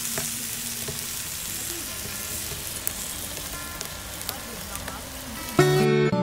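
Lamb chops and seekh kebabs sizzling on a wire grill over a charcoal fire: a steady hiss with occasional sharp pops. Near the end, acoustic guitar music cuts in suddenly and drowns it out.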